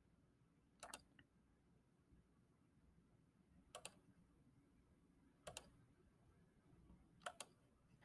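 Four faint computer mouse clicks, each a quick double tick of press and release, spread a couple of seconds apart over near-silent room tone.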